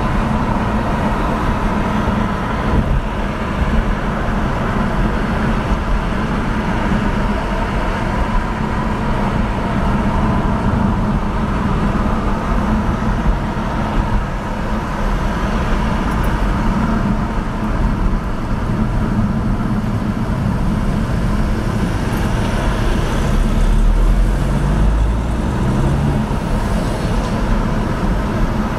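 Steady road noise of a car driving in traffic on a multi-lane road: tyre and engine noise with a low hum. There is a louder low rumble about three-quarters of the way through.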